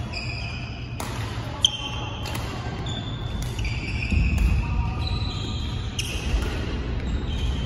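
Badminton rally: rackets strike the shuttlecock with sharp cracks, about once a second, the loudest about a second and a half in. Court shoes squeak briefly on the floor, over a steady low rumble.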